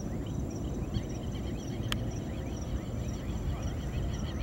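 Outdoor ambience: a steady low rumble with high, chirping calls repeating a few times a second, and a single sharp click about two seconds in.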